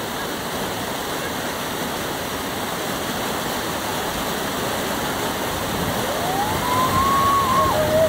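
Water rushing steadily down a stepped concrete tubing chute. About six seconds in, a person's long shout rises, holds, then drops off near the end as riders in inner tubes start down the chute.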